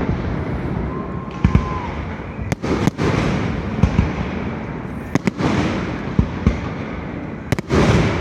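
Aerial fireworks show: a rapid series of booming shell bursts, a bang every second or so, over continuous crackling and rumbling echo.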